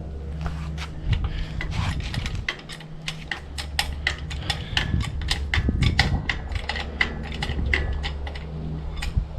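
Engine hoist's hydraulic jack being worked by hand after refilling with brake fluid: a quick run of light metallic clicks and taps, several a second, over a steady low hum.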